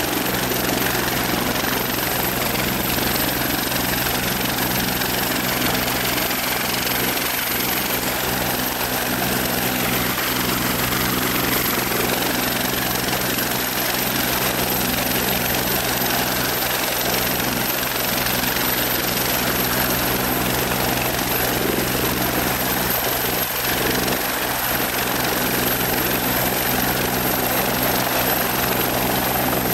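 Bell 430 helicopter's twin turboshaft engines and rotor running steadily: a constant low hum with a rapid rotor beat and a high thin turbine whine above it.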